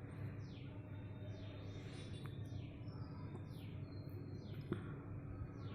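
A bird calling faintly in the background: a short, falling chirp repeated about once a second, over a low steady hum.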